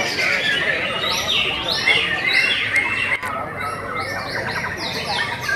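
White-rumped shama (murai batu) singing in a contest cage: a fast, unbroken run of repeated whistles and chattering phrases.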